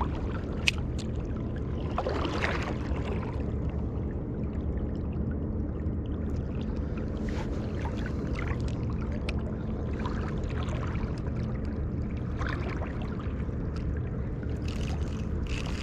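Creek water flowing and trickling steadily, with scattered small clicks and splashes, one sharp click just under a second in.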